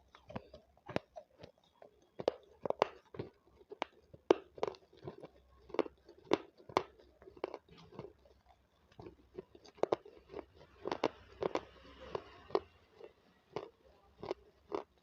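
Close-up crunchy chewing of capsicum: repeated crisp bites and crunches, irregular, a few each second.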